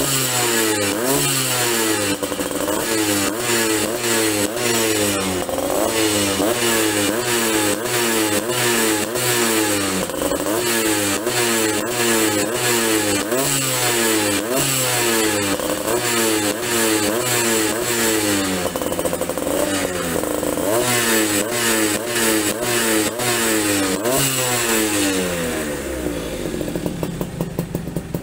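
Yamaha V80's two-stroke single-cylinder engine revved over and over through an aftermarket racing muffler, the throttle blipped in quick succession, the revs dying away near the end. It revs out cleanly: the stutter (brebet) it had is gone.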